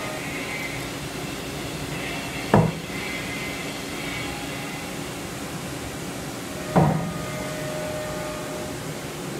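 Two short, sharp knocks about four seconds apart, over a steady background noise.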